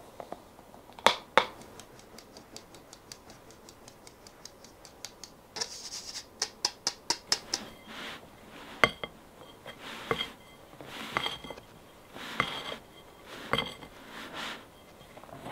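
Flour being sifted through a mesh sieve over a glass bowl: two sharp knocks about a second in, then a run of quick light taps that turns into louder rhythmic tapping around six seconds. From about eight seconds a spatula folds the batter, knocking and scraping against the glass bowl roughly once a second with a faint ring.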